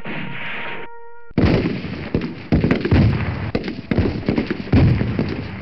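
A held brass chord ends about a second in, cut off by a sudden, loud, rapid series of bangs and blasts that runs on to the end.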